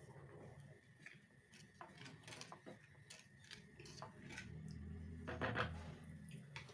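A wooden spatula stirring water in a metal kadai, with a brief louder scrape against the pan about five and a half seconds in. Faint scattered ticks come before the stirring.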